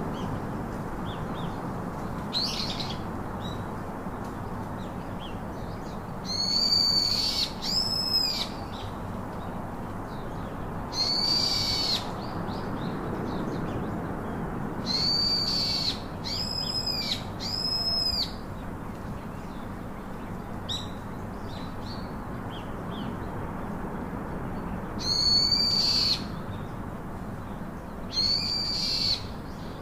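A bird giving a series of loud, high-pitched calls, about eight in all, each lasting under a second and some coming in quick pairs, over a steady low background hiss.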